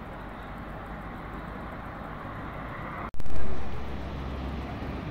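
Road traffic noise, a steady hum. About three seconds in the sound cuts out for an instant and returns louder, with a low vehicle rumble that swells and fades over about a second.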